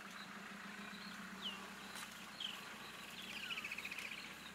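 High chirping animal calls: a short call sliding down about a second and a half in, then another call running into a rapid trill near the end, over a steady low hum.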